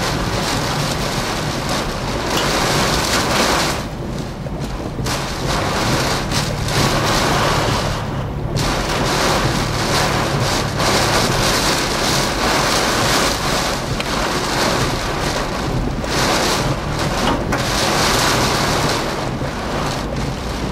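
Heavy wind-driven rain pelting a vehicle's windshield and body in the storm winds of a tornado, heard from inside the cabin, surging and easing in gusts with a couple of brief lulls, over a steady low rumble.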